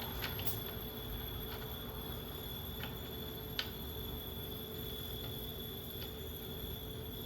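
Steady background hum with a few faint, sharp clicks of small metal lamp parts being handled and fitted together, the clearest about three and a half seconds in.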